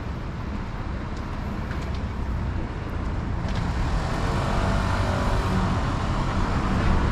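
Street traffic: road vehicles running with a steady low rumble, growing louder from about halfway through.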